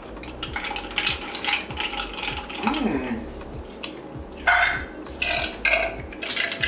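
Eating and drinking sounds: papaya juice sipped through a straw from a plastic cup of ice, with many light clicks and clinks and a short hummed 'mm' about three seconds in.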